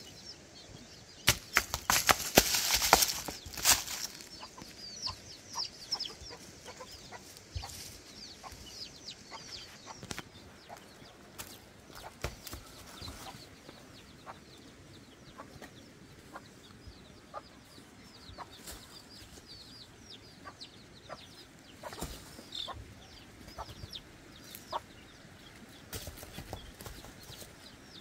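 Footsteps crunching and clicking over loose stones and rubble, with a louder scuffle and clatter about one to four seconds in. Birds call in short high chirps throughout.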